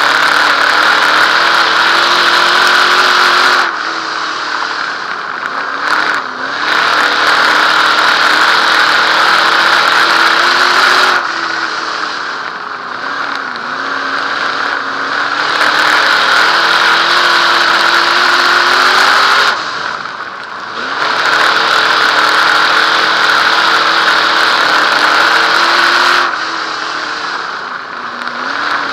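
Dirt modified race car's V8 engine heard from inside the car. It runs at full throttle and eases off about every seven or eight seconds, four times, as the car goes around the oval.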